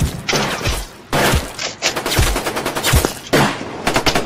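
Gunfire in several loud bursts of shots, ending in a rapid machine-gun burst in the last second.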